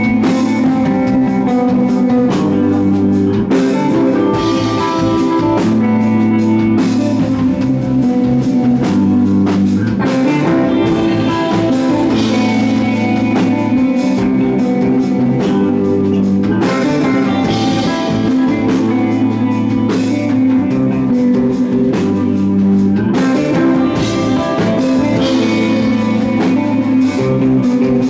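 Live stoner rock band playing loudly: electric guitar, bass guitar and drum kit, with sustained guitar notes over a steady bass line and cymbals.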